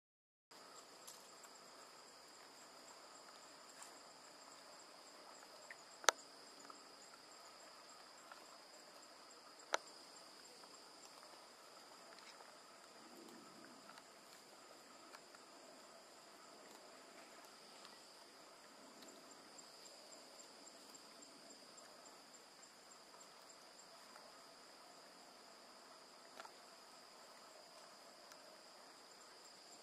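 Faint, steady chirring of insects: two high tones hold throughout, the upper one finely pulsing. Two sharp clicks stand out, about six and ten seconds in.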